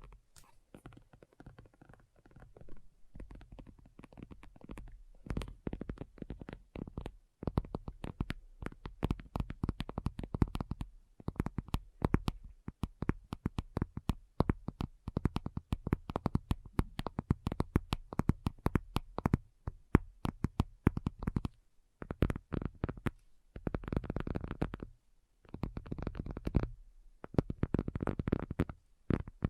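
Fingernails tapping rapidly on a hard object, in quick flurries of clicks broken by short pauses.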